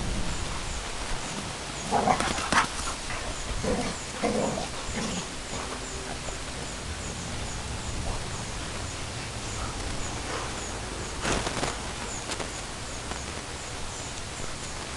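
Two American bulldogs play-fighting, their dog noises coming in short bursts: about two seconds in, around four to five seconds, and again past eleven seconds.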